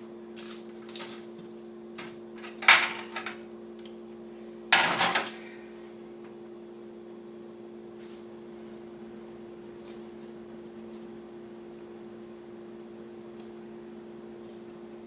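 Kitchen things clattering as they are handled and put away, with a few loud knocks in the first six seconds. After that there is a steady low electrical hum with a few faint clicks.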